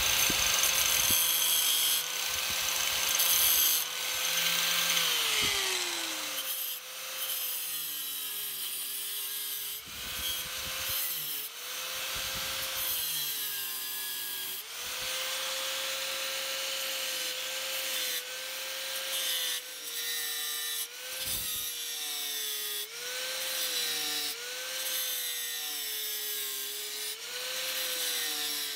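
Angle grinder cutting into a steel axe head: a steady motor whine that sags in pitch each time the wheel bites into the steel and climbs back between passes, over a constant high hissing grind.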